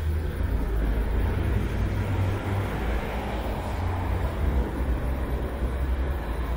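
Road traffic on a multi-lane city street: a steady low rumble of passing cars.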